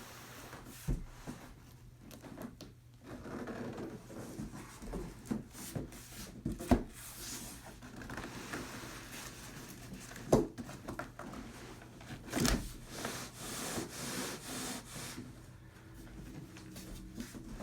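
Cardboard and packing material rubbing and scraping as a tower speaker is unboxed and handled, with a few sharp knocks of the wooden cabinet or box being set down or bumped.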